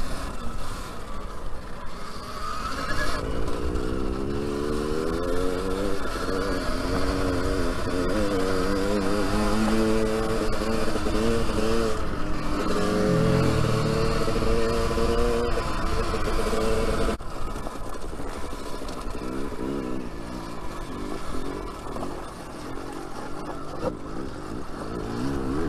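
Dirt bike riding: a motorcycle's drive note rising and falling in pitch with the throttle, over heavy wind rumble on the microphone. The pitched sound drops away about two-thirds of the way in, leaving mostly the wind rumble.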